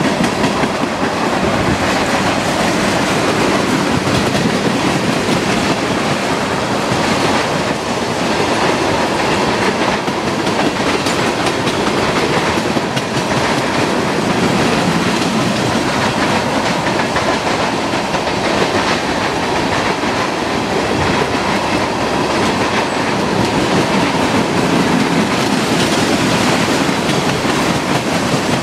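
Tank cars of a Norfolk Southern freight train rolling past close by: a steady, loud rolling clatter of steel wheels on the rails.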